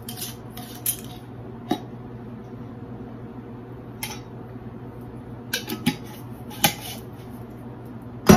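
Light clinks and clicks of a glass mason jar and its metal screw lid being handled over a glass mixing bowl while ground flaxseed is poured, with a louder knock near the end as something is set down on the counter. A steady low hum runs underneath.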